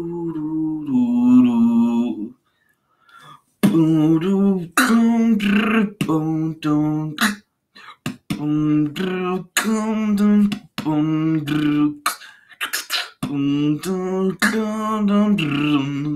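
Beatboxing: a man's voice holding hummed, pitched bass notes in short phrases, cut through with sharp mouth-made clicks and snare sounds. There is a brief break about two seconds in.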